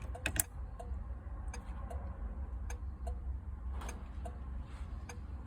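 1967 Ford Galaxie turn signal flasher clicking very slowly, a few separate ticks a second or more apart, over a low steady hum. It is the flasher working again after the canceling cam was replaced and rewired, but blinking far too slowly.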